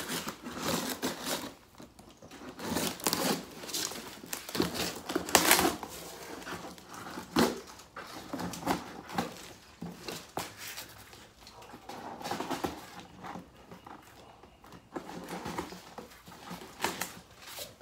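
Packing tape on a long cardboard box being slit open with a knife, with irregular crackling, scraping and rustling of tape and cardboard and a few sharp knocks against the box.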